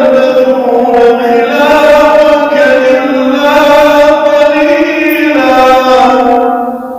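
A man reciting the Quran in the melodic tajweed style: one long, drawn-out phrase whose held notes slide and turn in pitch. It fades out near the end with a trailing echo.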